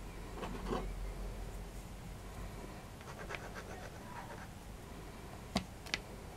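Dominoes being slid and set down on a CD on a cutting mat. There is faint scraping about half a second in, a run of light clicks around the middle, and two sharp clicks near the end, which are the loudest.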